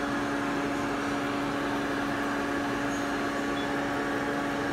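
Steady mechanical hum at one fixed pitch over a light hiss, unchanging throughout.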